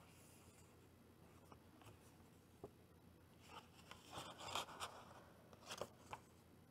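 Faint rustling and light taps of card stock joined with washi tape as it is folded and handled, with the most rustling about four to five seconds in.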